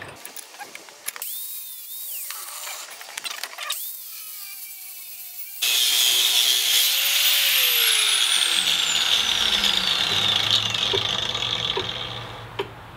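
Clicks and rattles as a bench vise is tightened on a metal bracket, then, about five and a half seconds in, a handheld angle grinder starts suddenly and grinds material off the bracket's sides with a loud, steady noise that fades away near the end.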